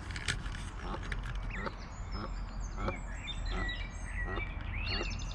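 Canada goose giving a run of short, low calls about every half second to second, calling a gosling back to it, with high thin peeps from the goslings over them in the second half.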